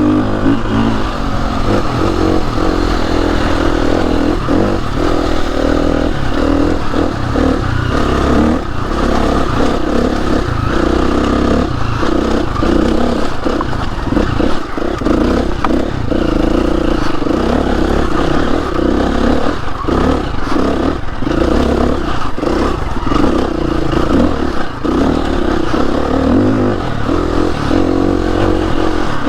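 KTM 350 EXC-F's single-cylinder four-stroke engine running as the trail bike is ridden along a rough lane. Its revs rise and fall, with frequent clatter and knocks from the bike over the uneven ground.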